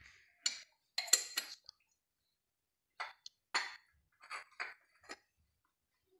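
Short metallic clinks and knocks of a metal spoon against a pan of raw chopped onions: a quick cluster about half a second to a second and a half in, then single knocks about every half second from about three seconds in.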